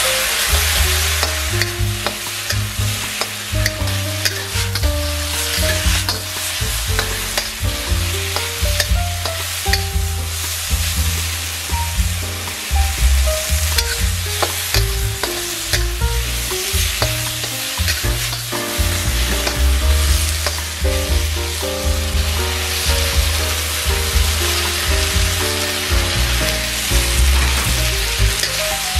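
Beef and broccoli sizzling in a hot wok as a metal wok spatula tosses them, scraping and clanking against the pan, over a steady background of music.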